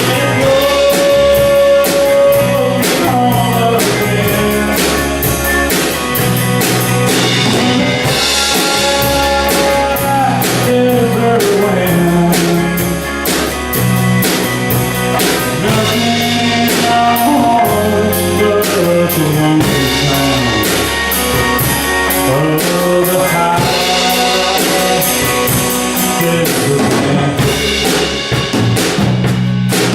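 Rock band playing at rehearsal: electric guitar, bass and drum kit keeping a steady beat, with a lead melody that bends and slides in pitch.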